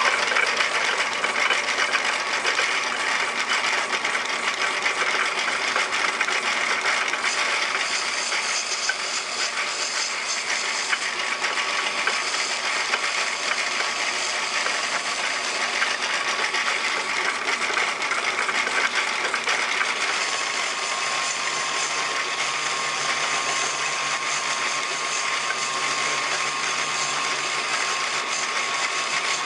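Metal lathe running with its chuck spinning, the tool turning a cast brass piston blank. A steady hiss of heavy rain lies under it. About twenty seconds in, a steady higher whine and a low hum join in.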